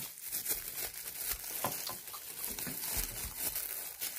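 Close-up chewing and biting of toasted garlic bread spread with mashed avocado: irregular crackly crunches of the crust.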